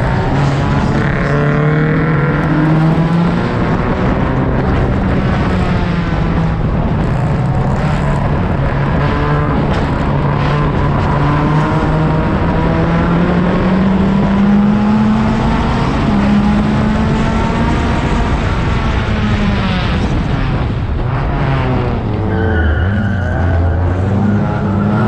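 Onboard sound of a 1600cc race car's engine under hard driving, the revs rising and falling through gear changes. Near the end the revs drop for a corner and the tyres give a brief high squeal.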